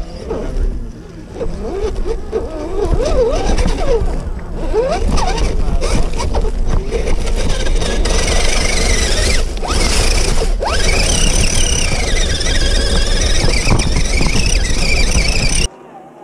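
Electric motor and gear drive of a 1/10-scale RC crawler whining as it crawls over rough ground, the pitch rising and falling with the throttle. About halfway through, a higher-pitched whine joins in, over a steady low rumble. The sound cuts off suddenly near the end.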